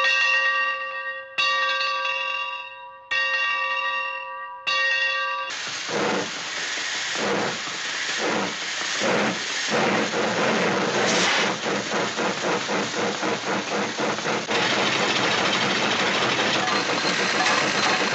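A bell struck four times, each stroke ringing out and fading, followed by a dense rushing hiss with a regular chugging pulse that evens out into a steady noise.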